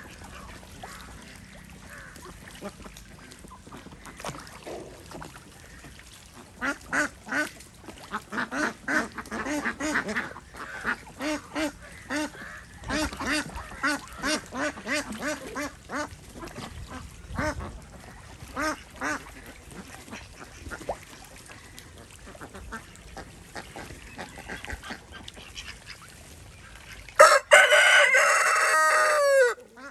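A flock of domestic ducks quacking in short, repeated calls, busiest through the middle, over water splashing as they bathe. Near the end a rooster crows once, loud and long, falling in pitch as it ends.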